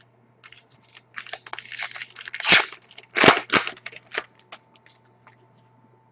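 A trading-card pack wrapper being torn open and crinkled, a run of crackling rips with two loudest tears in the middle, then the handling stops.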